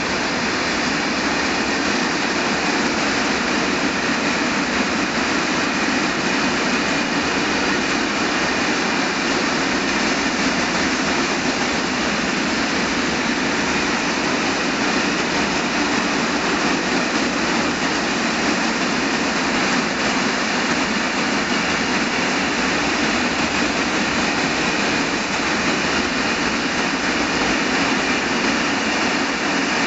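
Freight train with a long string of hooded coil wagons behind an FS E656 electric locomotive rolling past at close range: a loud, steady, even noise of steel wheels on rails.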